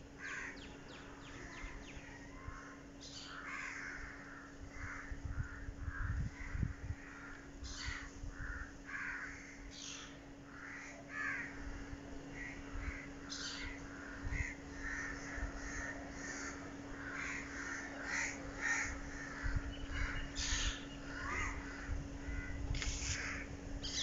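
Crows cawing over and over, with other birds calling in between. A steady low hum runs underneath.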